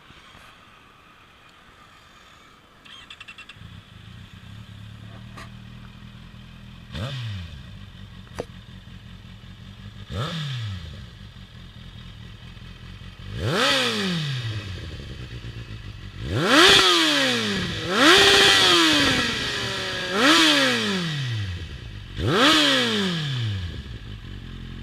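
Kawasaki Z800's inline-four engine through an Akrapovic exhaust, starting about three seconds in and idling, then blipped again and again: quick revs that rise sharply and fall back to idle, higher and louder in the second half.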